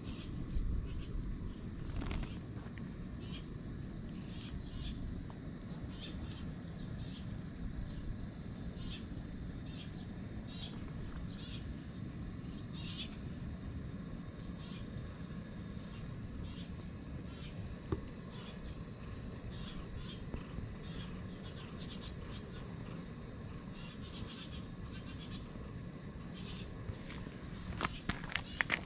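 Insects chirping outdoors: a thin, steady high drone with short chirps every second or so, over an even low rumble.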